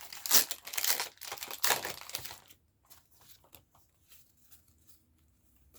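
A Pokémon TCG booster pack's foil wrapper being crinkled and torn open for about two and a half seconds, then only faint small handling ticks.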